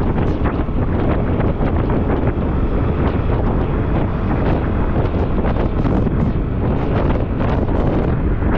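Loud, gusty wind buffeting the microphone of a Yamaha Aerox 155 scooter rider in motion, with the vehicle's running noise underneath.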